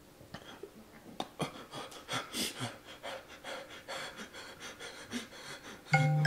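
A man panting and breathing hard through his mouth, struggling against the burn of the Paqui One Chip Challenge chili chip. Music with bright chime-like notes starts near the end.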